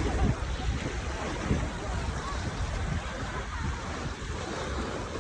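Wind buffeting the microphone, with the wash of ocean surf.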